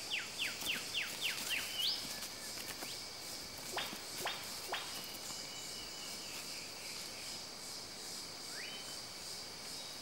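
Tropical rainforest ambience: a steady high-pitched insect drone throughout, with birds calling over it. A quick run of about eight falling whistled notes comes in the first second and a half, then a few sharp downward-sweeping calls around four seconds in, and a couple of rising notes that level off into held whistles.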